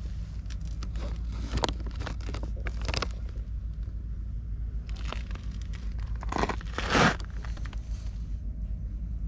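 Plastic packaging crinkling and rustling in several short bouts, the loudest about seven seconds in, over a steady low rumble of wind on the microphone.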